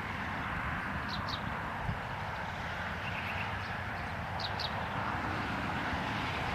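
A bird giving short, high double chirps twice, about three seconds apart, over a steady outdoor hiss and low rumble.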